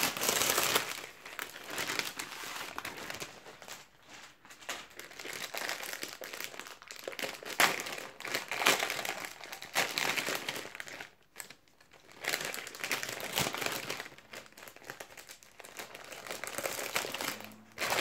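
Foil packaging of Panini Adrenalyn XL trading-card starter packs crinkling in irregular bursts as hands open and handle it, with a few short pauses.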